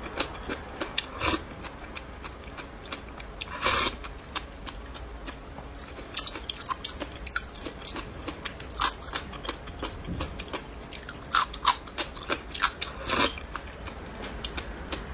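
Close-up chewing and crunching of crisp, spicy pickled dried radish: many small sharp crunches, with a few louder bites about a second in, near four seconds and near the end.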